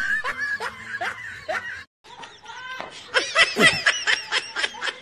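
A person laughing in short, quick repeated bursts. The laughter breaks off briefly about two seconds in, then comes back louder.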